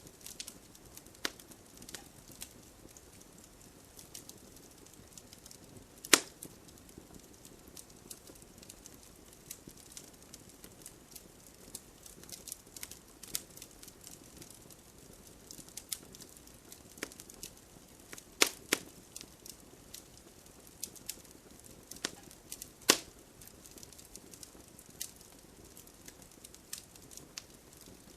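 Fire crackling: irregular small snaps and clicks over a faint steady hiss, with a few louder pops, two of them close together.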